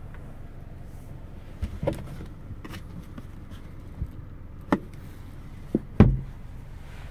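Sharp plastic clicks and knocks from the car's sun visor and vanity mirror being handled, the loudest about six seconds in, over the steady low hum of the Nissan Micra's engine idling.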